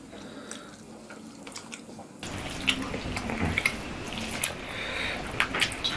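Wet eating sounds: fingers squelching rice and fish curry on steel plates, with chewing and scattered lip smacks and clicks. Sparse for about the first two seconds, then louder and busier.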